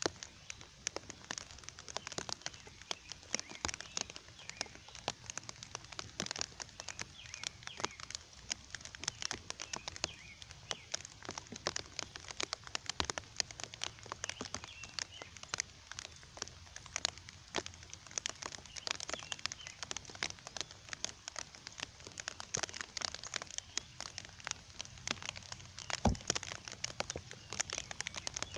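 Steady rain falling, many close drop hits ticking irregularly, with one louder knock near the end.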